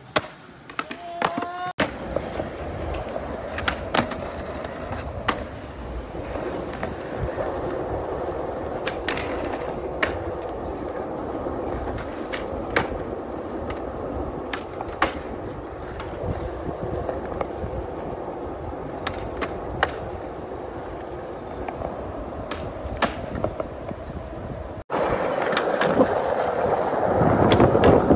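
Skateboard wheels rolling on concrete, cut with many sharp pops and clacks of ollies, tail snaps and landings. The rolling noise changes abruptly twice, about two seconds in and near the end, and is loudest in the last few seconds.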